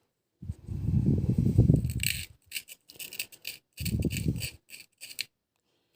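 Small graphite discs from a sewing-machine foot pedal's carbon-pile regulator being handled and scraped: a dull rubbing twice, with a run of about ten light, sharp clicks from about two seconds in, as the discs tap and clink against each other.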